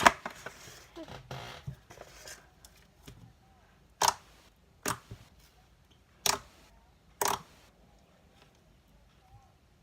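Hands working a slime, with crackling and clicking air-pocket pops: a sharp click at the start, soft crackles, then four separate loud pops about a second apart.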